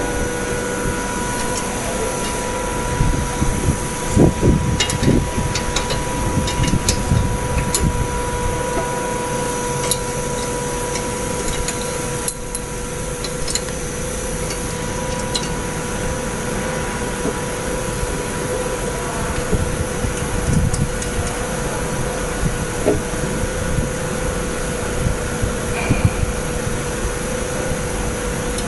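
Steady machine hum with a constant tone, over scattered metallic clicks and knocks from hands adjusting and tightening parts on the aluminium fixture of a screen printing machine. The knocks are densest a few seconds in and come again near the middle and toward the end.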